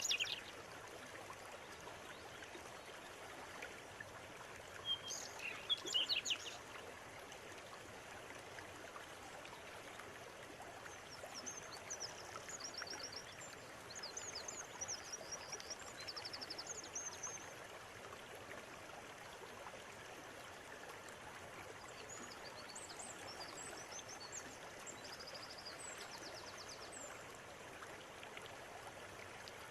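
River water running steadily, with birds calling over it: a short loud call at the start and another about five seconds in, then stretches of rapid high-pitched trilling chirps in the middle and again later.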